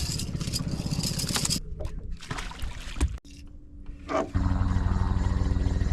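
Boat's outboard motor running with a low, fast, even pulse. It drops away briefly, then comes in much louder from about four seconds in.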